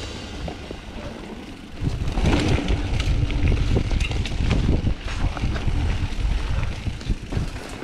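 Mountain bike riding a rough dirt trail: tyres rumbling over the ground and the bike rattling with frequent short clicks, with wind buffeting the action-camera microphone. It gets louder about two seconds in.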